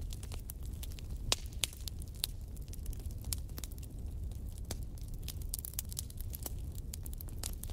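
Wood fire crackling in a fireplace: a low steady rumble of flames with irregular sharp pops and snaps, a few louder ones scattered through.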